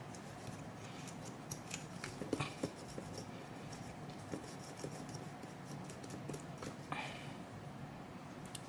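Faint hand-work noise: scattered small clicks and brief light scraping as a cotton swab scrubs and handles a graphics card's plastic parts, busiest early on and with one short scrape near the end.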